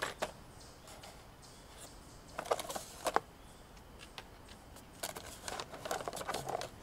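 Plastic lure packaging crinkling and rustling as it is handled and pulled out of a cardboard box, in short bursts: a couple about two and a half to three seconds in, and a denser stretch of rustling from about five seconds to the end.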